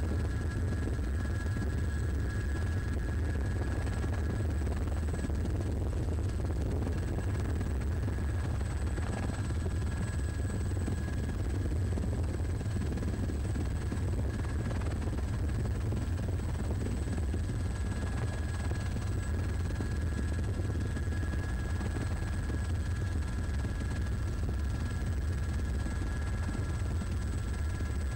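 Helicopter engine and rotor noise heard from on board: a steady, low, heavy drone with a few faint, thin whining tones above it.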